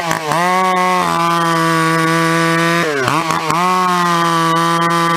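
Gas chainsaw running at high revs while ripping lengthwise along a log. Its engine note holds steady but dips and recovers briefly a few times, near the start and again around three seconds in.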